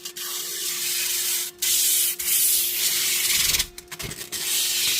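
Protective plastic film being peeled off a holographic PFLAT print sheet: a rasping hiss in several long pulls with brief breaks between them. A faint steady hum runs underneath.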